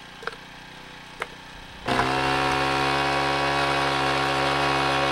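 Two light knocks as hot dogs drop into the steel cup of a gas-powered blender, then the blender's small gasoline engine comes in abruptly about two seconds in and runs steadily at high speed.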